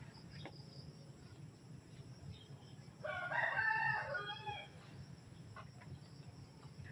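A rooster crowing once, a call of about a second and a half starting about three seconds in.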